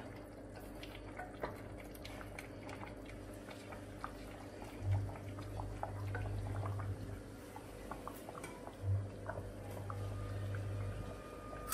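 Coconut-milk rendang broth with beef simmering in a stainless-steel pot at the boil, bubbling with many small pops and ticks, over a steady low hum.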